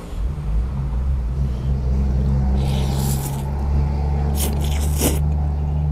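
A motor vehicle engine running close by as a steady low drone, over which a person slurps and sucks in rice noodles twice, about three seconds in and again a second and a half later.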